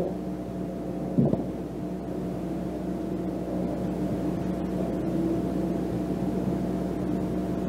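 A steady hum of several fixed tones over a hiss, with a brief short sound about a second in.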